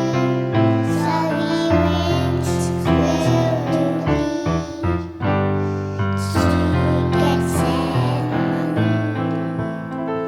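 Music: a song with piano or keyboard accompaniment and a singing voice.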